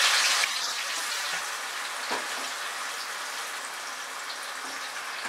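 Marinated chicken pieces sizzling steadily in hot oil in a kadai on high flame, easing slightly about half a second in, with a light knock about two seconds in.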